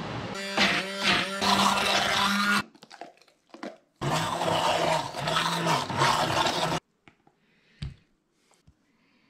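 Hand-held immersion blender running in two bursts, about two and three seconds long, puréeing a chili-cilantro sauce in a bowl; the second burst stops abruptly. Faint taps and clicks follow.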